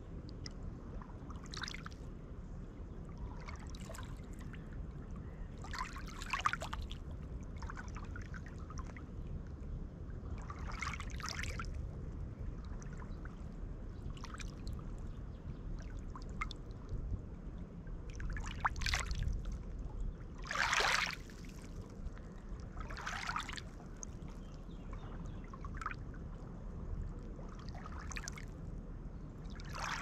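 Small lake waves lapping and splashing against a pebble shore: irregular short splashes every second or two over a steady low rumble, one larger splash about two-thirds of the way through.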